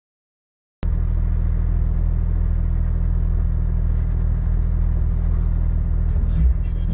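Dead silence, then about a second in, the steady low cabin rumble of a 4x4 driving on a dirt road cuts in suddenly. Near the end, music with a beat starts over it.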